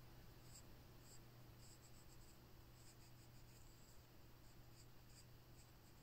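Faint scratching of a coloured pencil shading on paper in short, irregular strokes, over a low steady hum.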